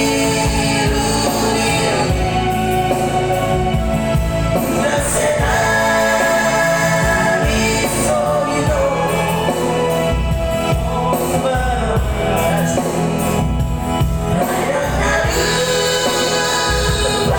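A Batak song, sung by voices over a steady instrumental accompaniment with a continuous bass line.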